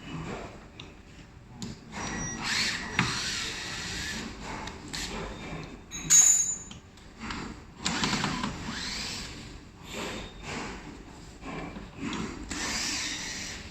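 Electric drill or power screwdriver run in three bursts of a few seconds each, removing the fasteners from a plating machine's cover, with a sharp metallic click about six seconds in.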